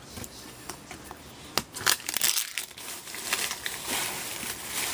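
Crinkling of a trading-card pack wrapper and the handling of cards, with a few sharp clicks and snaps, the loudest about a second and a half in. The crinkling grows denser toward the end.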